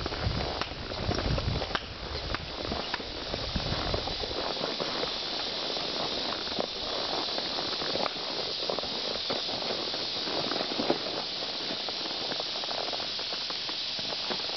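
Tennessee Walking Horse walking a dirt woodland trail, scattered soft hoof knocks over a steady high hiss. A low rumble stops about four seconds in.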